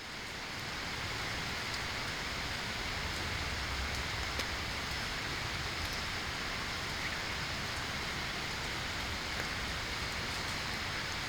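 Steady rain-like hiss, with a few faint ticks scattered through it.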